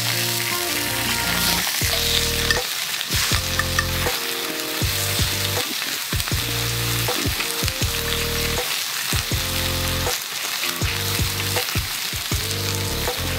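Thin slices of beef sizzling steadily in a black iron skillet over a wood fire.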